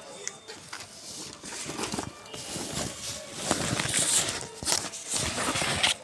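Rustling and soft knocks of a school backpack and its notebooks being handled and unpacked, in irregular bursts.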